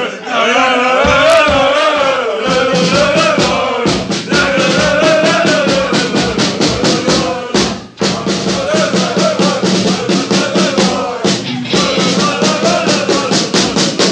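A rock band playing live: a man singing loudly into a microphone over electric guitar and a fast, steady drum beat, with a short break in the music about eight seconds in.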